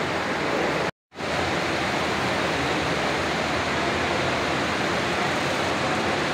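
Steady, even rushing noise from many electric pedestal fans and air coolers running together in a large hall. It cuts out completely for a moment about a second in.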